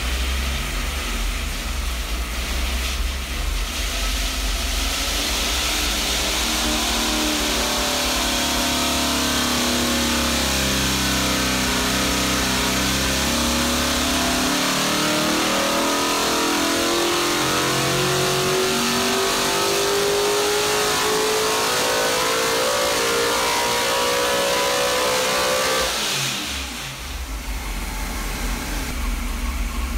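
SB2 small-block V8 race engine on an engine dynamometer during a dyno pull. It runs at idle, then under load its speed sags briefly and climbs steadily for about thirteen seconds, pitch rising, before the throttle closes and it drops back to idle near the end.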